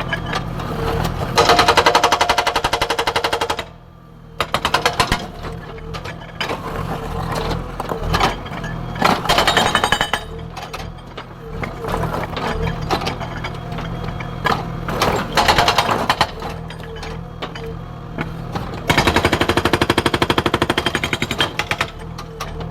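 Hydraulic rock breaker on a JCB 3DX backhoe loader hammering in bursts of rapid, evenly spaced blows, with short pauses between bursts. The backhoe's diesel engine runs steadily underneath.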